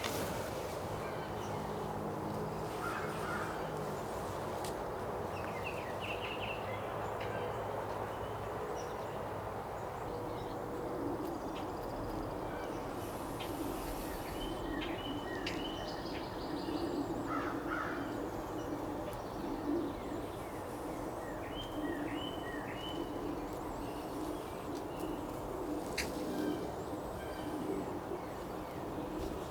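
Wild turkey close by making soft, low pulsing sounds that repeat every second or two, with a few short high chirps from small birds.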